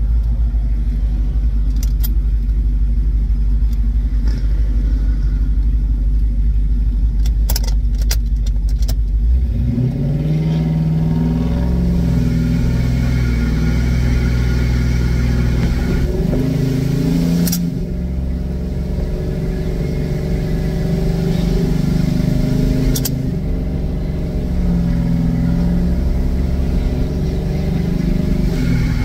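Cammed Hemi V8 Ram pickup heard from inside the cab: a deep low rumble with a few light clicks, then about ten seconds in the engine note rises as it accelerates and settles into a steady drone of stacked exhaust tones.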